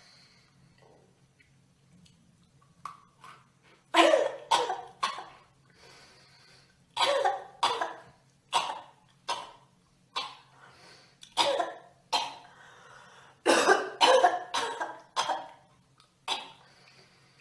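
A girl coughing repeatedly in short fits of one to four coughs with brief pauses between, well over a dozen coughs in all. The longest fit comes near the end.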